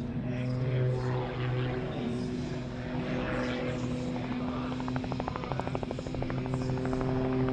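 Propeller-driven aerobatic aircraft engine running during a display routine, its note steady in pitch, taking on a rapid pulsing buzz about halfway through.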